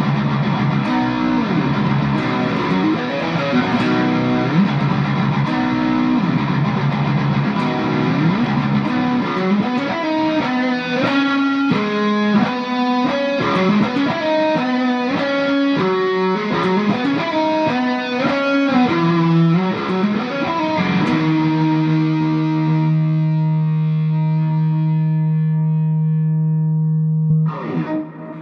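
Distorted electric guitar playing a rock riff with sliding notes, then quicker note runs, ending on a long held note that rings for several seconds and is stopped near the end.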